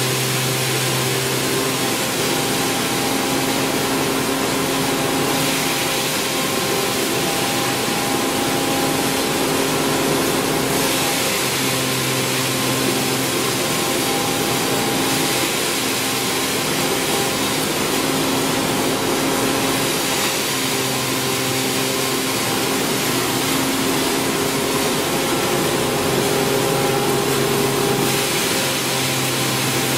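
Hammer mill running steadily while crushing palm kernel shells: a constant loud machine hum with several steady tones under a continuous hiss of grinding.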